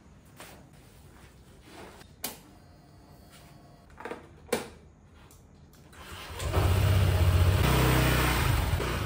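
A few short, separate knocks in near-quiet, then about six seconds in a motorcycle engine and wind noise come in loudly and keep running steadily.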